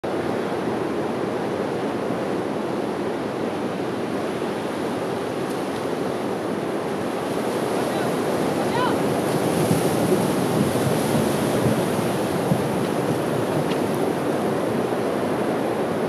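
Ocean surf breaking and rushing over a driftwood-strewn beach: a steady roar of whitewater that grows louder about halfway through as a large wave surges up the beach and floods the logs.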